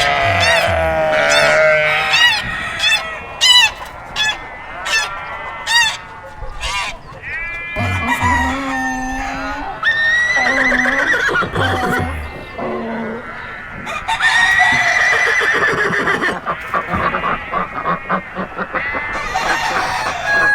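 A run of farm fowl sound effects: loud repeated honking calls early on, then chickens clucking and a rooster crowing.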